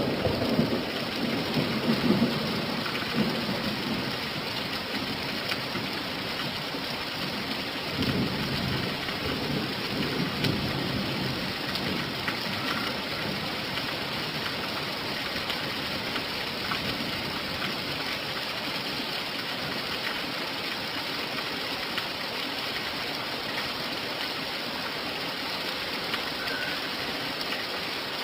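Steady rain falling, an even hiss, with a roll of thunder dying away over the first few seconds and a fainter low rumble of thunder about eight seconds in.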